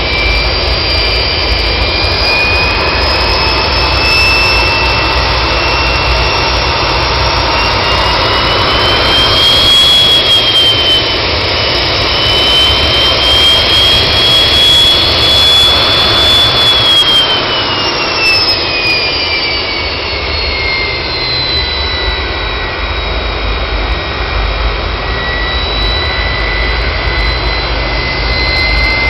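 Klimov VK-1 centrifugal-flow turbojet running, a loud rush with a high whine. The whine climbs over the first ten seconds or so as the engine is throttled up, holds, then falls back about eighteen seconds in and settles at a lower steady setting.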